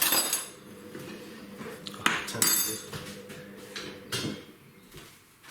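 Utensil clinking and scraping against a mixing bowl while stirring a thick yogurt-and-spice marinade, with a few sharp ringing knocks, the loudest about two seconds in.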